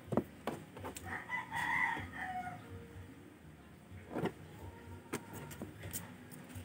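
A rooster crows once in the background, starting about a second in and lasting about a second and a half. Scattered light clicks and taps of hand tools on the scooter engine's valve gear come and go around it.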